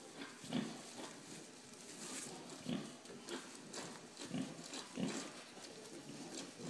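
Chester White piglets grunting, a string of short grunts every second or so.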